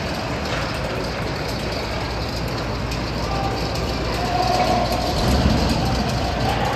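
Steady ambient noise of an ice hockey game in play inside a rink: skates on the ice over a low, even rumble of the arena, with no single event standing out.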